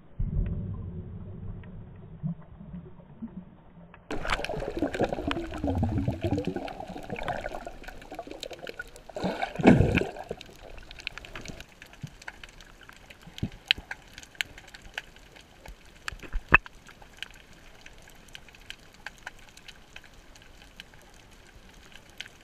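Water recorded underwater: muffled rushing for the first few seconds, then bubbling and sloshing with a strong surge about ten seconds in. After that comes a steady faint crackle of tiny clicks.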